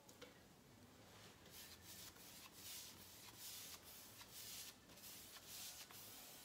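Faint swishing of a paintbrush's bristles drawn over a painted wooden cabinet panel, a run of light strokes about two a second from about a second and a half in.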